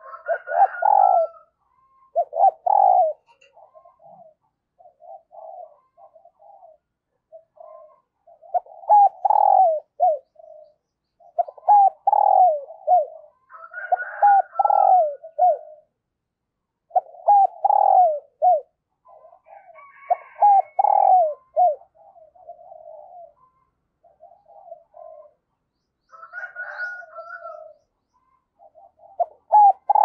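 Spotted dove cooing, a decoy bird calling: hoarse phrases of several coo notes, repeated every few seconds with short pauses between.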